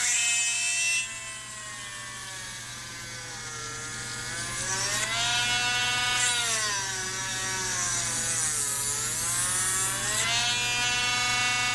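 Dremel rotary tool running with a tiny number 54 drill bit, its high motor whine sagging and recovering in pitch a few times as the bit bores into a wooden dowel.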